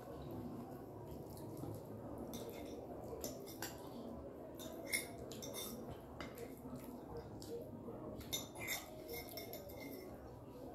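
Metal forks clinking and scraping against plates as people eat, in scattered small clicks over a low steady hum.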